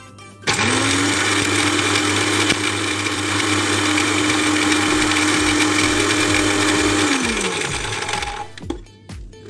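Electric blender grinding spices for baharat: the motor starts about half a second in, runs at a steady pitch for about six and a half seconds, then is switched off and winds down with a falling pitch.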